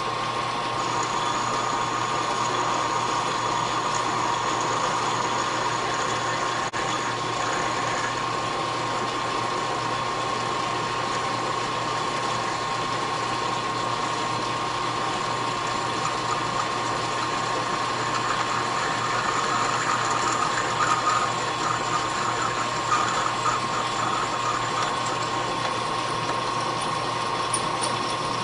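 Metal lathe running with a steady geared whine while a boring bar cuts inside a steel bore, increasing the infeed after the tool had been rubbing. Uneven cutting noise rises over the running sound from about 18 to 24 seconds in.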